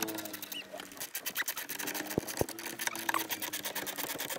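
Ratchet wrench clicking and scraping in quick strokes as a mounting bolt is tightened, with a couple of brief knocks about two seconds in.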